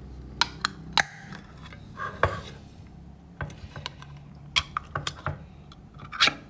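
Ring-pull easy-open lid of a tin can being pried up and peeled back by hand: a string of irregular sharp metal clicks and creaks as the scored lid tears open.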